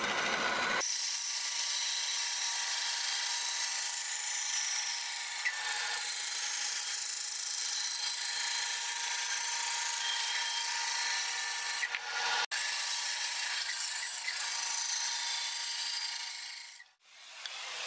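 Bandsaw running and ripping a glued-up pallet-wood blank, a steady hiss of the blade in the wood with a faint constant whine. The sound breaks off for an instant about twelve seconds in and fades out near the end.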